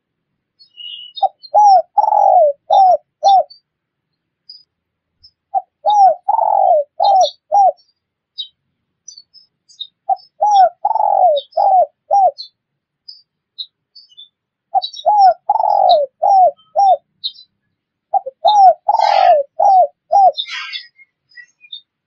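Spotted dove (tekukur) cooing: five phrases about four to five seconds apart, each a short note, a longer falling coo and a few short notes. Faint high chirps of small birds sound between the phrases.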